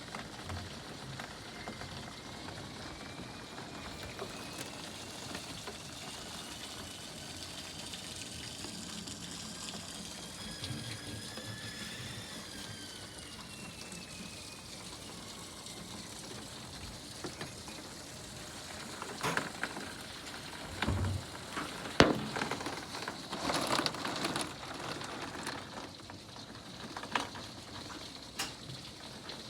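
Steady spring rain pattering on roofs. A faint whining tone rises and then falls in the first half, and several sharp knocks come in the second half, the loudest about two-thirds of the way through.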